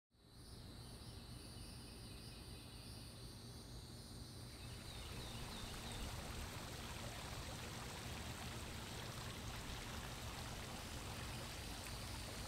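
Steady running, trickling water, fading in at the start.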